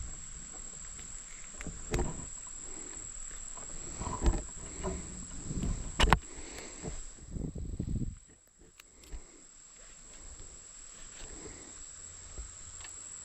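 Insects keep up a steady high-pitched drone, with rustling and a few sharp knocks over it, the loudest knock about six seconds in.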